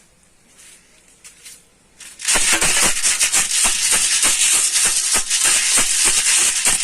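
Dry cat kibble rattling in a container: a dense, rapid rattle that starts suddenly about two seconds in and keeps going.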